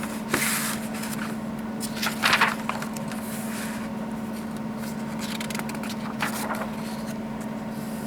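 Paper pages of a picture book being handled and turned: a few short rustles and scrapes, the loudest about two seconds in, over a steady low hum.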